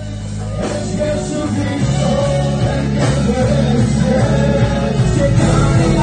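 Worship song with band and singing: full band with a steady beat and a sung melody.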